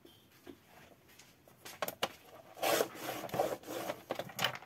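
Sliding paper trimmer cutting a sheet of patterned paper: a few clicks as the blade carriage is set, then about two seconds of rasping as it slides down the rail, ending with a sharp click.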